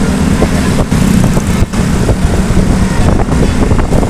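Diesel engine of a large tour bus running close by: a loud, steady low hum.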